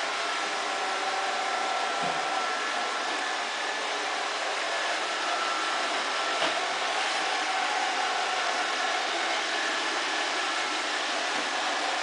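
iRobot Roomba robot vacuum cleaner running steadily, a constant whirring hiss with faint high hums that come and go. A brief light tap about six and a half seconds in.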